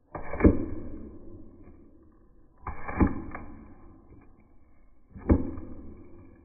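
Three heavy knocks about two and a half seconds apart, each a sharp strike with a tail that fades over a second or two.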